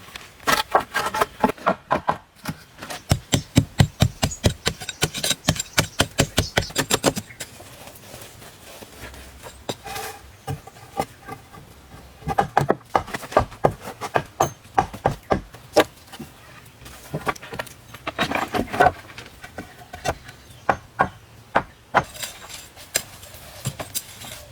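Rapid, regular knocking and clinking of hand work on hard material, about three to four strikes a second for the first seven seconds, then scattered taps and clinks.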